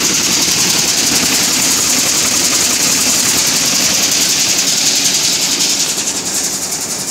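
Nut chopping machine running steadily: its rolling knives, vibrating feeder and sieves keep up a loud, even rattling hiss of chopped nut pieces on sheet steel. It gets slightly quieter about six seconds in.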